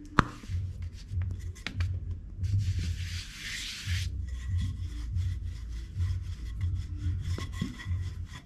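A rolling pin rolled back and forth over thin spring roll wrapper dough on a tiled counter, rubbing and thudding in a steady rhythm of about two strokes a second. A brief hiss comes a little over two and a half seconds in.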